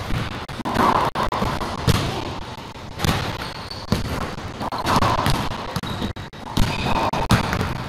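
Racquetball rally: the hollow rubber ball repeatedly popping off racquets and the court walls, the hits echoing in the enclosed court.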